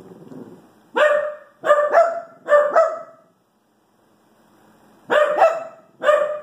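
A dog barking in short, high-pitched barks: a quick run of five about a second in, a pause, then three more near the end.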